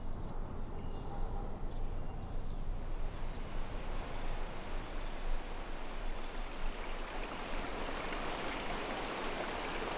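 Outdoor nature ambience: a steady rushing wash of noise with a continuous high-pitched insect trill above it. The rushing grows brighter toward the end.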